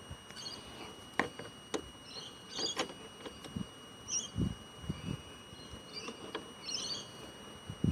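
Scattered small clicks and a few light knocks of screws being fitted back into a car's interior door panel. Short bird chirps sound several times in the background over a faint steady high whine.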